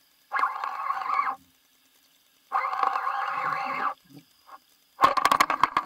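Conventional fishing reel being cranked against a hooked fish: two buzzing whirs of about a second each, with a pause between them. Near the end comes a quick run of sharp clicks.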